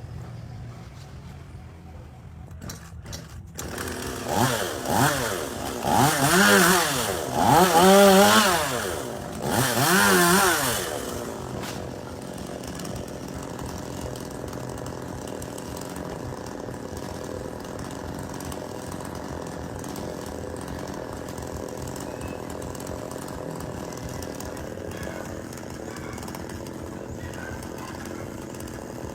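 Chainsaw engine revved four times in quick succession, its pitch rising and falling with each throttle blip, then settling to a steady run.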